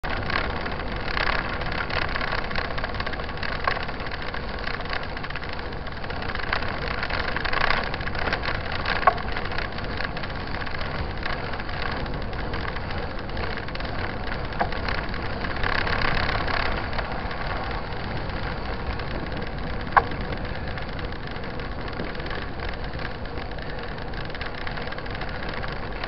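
Mountain bike rolling over a dirt road: a steady tyre rumble and rattle as the bike and its camera shake on the surface, with two sharp knocks about nine and twenty seconds in.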